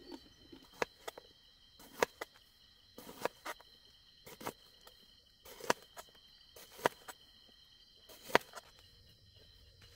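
Kitchen knife slicing a red bell pepper on a plastic cutting board: sharp knocks of the blade hitting the board, about ten of them at an irregular pace of roughly one a second, the loudest near the end.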